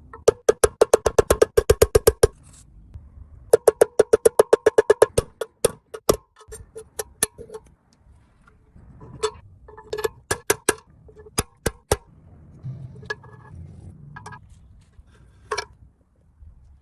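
Rapid hammer blows on a metal part, each strike ringing at one pitch: two fast runs of about eight blows a second, then slower, scattered single blows.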